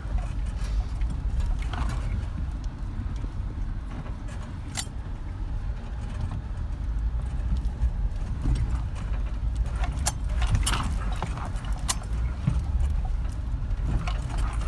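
A Jeep driving slowly over a rocky dirt trail, heard from inside the cab: a steady low rumble of engine and tyres, with scattered clicks and rattles as it jolts over the rocks.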